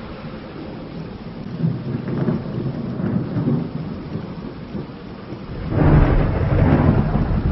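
Thunderstorm: rain falling with low, rolling thunder, then a sudden louder crash about six seconds in that carries on to the end.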